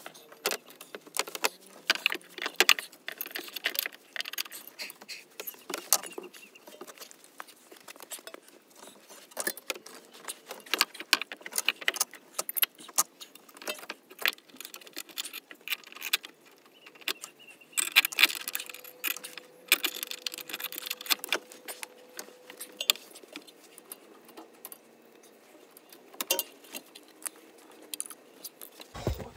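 Light metallic clinking and rattling of rear brake parts being handled by hand as a brake disc is worked onto the wheel hub. It comes in quick runs of clicks, busiest near the start and again a little past the middle, and thins out near the end.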